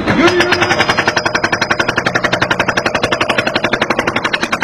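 Excavator working in the dirt, giving a fast, even mechanical rattle of about ten sharp knocks a second.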